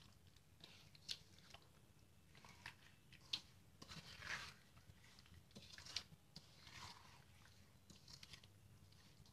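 Faint, irregular wet squelching of a bare hand kneading soft boal fish pieces into a thick oily masala paste in a metal kadai, with a few sharp clicks.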